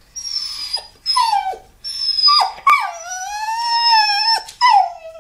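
Puppy whining and crying in a run of about five high-pitched, drawn-out whines, the longest in the middle, most sliding down in pitch at the end: distress at being left behind by his owner.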